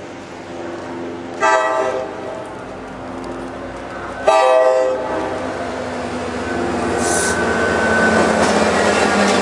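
Locomotive air horn sounding a steady chord, then two short loud blasts about three seconds apart; the rumble and clatter of the passing train then grow louder.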